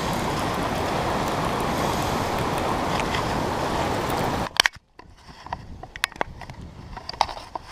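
Steady rushing of a creek waterfall. It cuts off abruptly about four and a half seconds in, leaving a much quieter background with scattered light clicks and taps.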